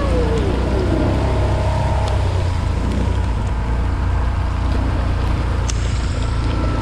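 A vehicle driving through heavy rain on a waterlogged road: a steady low rumble with the hiss of rain and tyres throwing up spray from the standing water.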